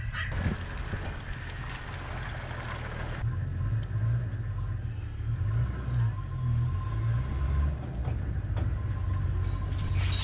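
Open safari 4x4's engine running, a steady low rumble, with a higher hiss that drops away about three seconds in.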